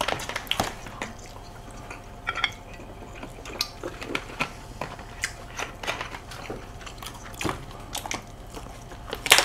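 Scattered light clicks and taps of a fork and dishes on a dining table, with some chewing.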